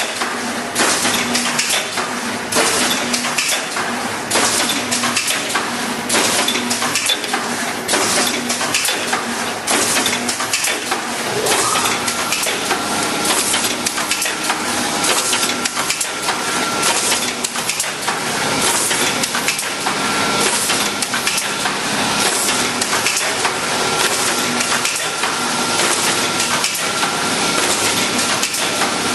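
Automatic spine pocket welding machine for lever arch files running, with dense, continuous mechanical clattering and rapid clicks. A steady high whine joins about twelve seconds in.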